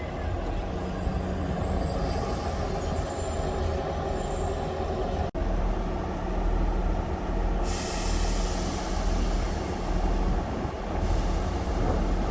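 Diesel train running past on the line, a steady low engine rumble with rail noise, broken by a brief cut about five seconds in.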